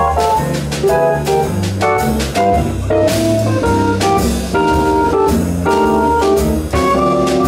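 Live jazz combo playing a swing number: a keyboard takes the lead with held, organ-like notes, over walking double bass, guitar and drum kit with regular cymbal strikes.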